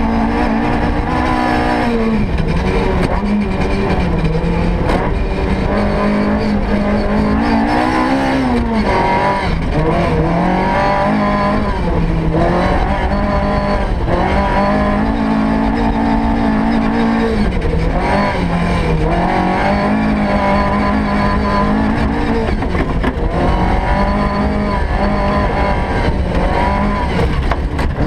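S1600-class rally car engine heard from inside the cabin, its revs climbing and dropping again and again as it is driven hard. Under it runs a constant rumble of tyres on the dirt road.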